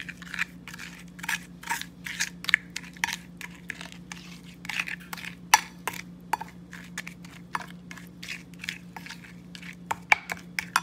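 A ceramic spoon scrapes and clinks against a china plate in quick, irregular strokes as it stirs a gritty, wet spice rub of dry seasonings and vinegar. A steady low hum runs underneath.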